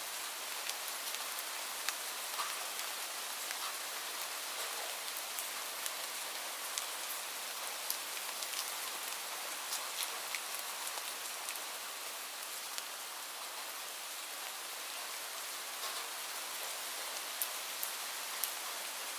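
Light rain falling steadily, a soft even hiss with many scattered drops ticking on a surface.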